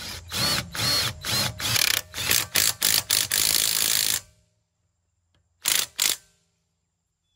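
Dayplus 21 V cordless 1/2-inch impact wrench hammering loudly on a car lug nut in a string of short trigger bursts over about four seconds, then two brief bursts after a pause. This is typical of the nut not breaking loose.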